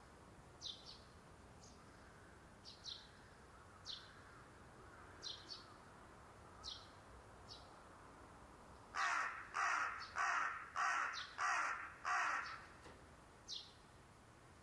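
Crow cawing six times in quick succession, loud and harsh, starting about nine seconds in. Short high bird chirps sound on and off before and after the caws.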